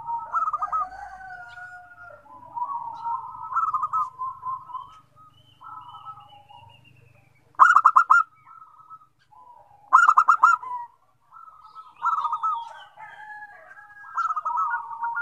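Several zebra doves (perkutut) cooing in overlapping staccato phrases. Two loud, rapid pulsed coo phrases stand out about 8 and 10 seconds in, and another rapid series starts near the end.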